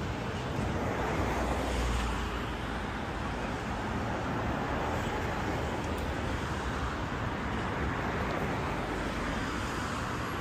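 Steady city street traffic noise, the hum of cars and trucks passing through an intersection, with a low rumble swelling about a second in.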